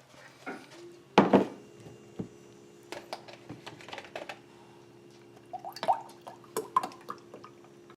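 Dishes and utensils clattering and clinking, with the loudest knocks about a second in and again near six seconds, over a steady low hum that starts about a second in.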